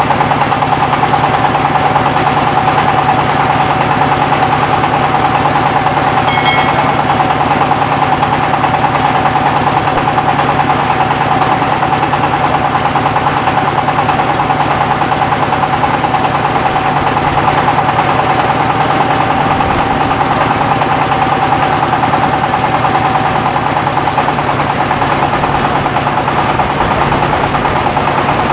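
Mobile rice-milling machine running steadily: its engine chugs rapidly under a constant whine from the mill.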